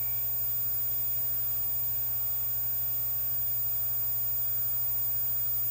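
Steady low hum with an even hiss from a TV speaker playing the blank stretch at the start of a VHS tape.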